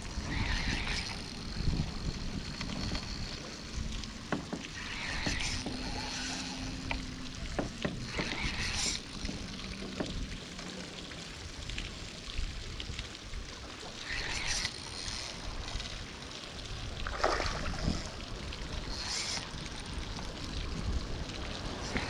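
Wind rumbling on the microphone, with short hissing rustles every few seconds. A faint steady hum runs for a few seconds from about five seconds in.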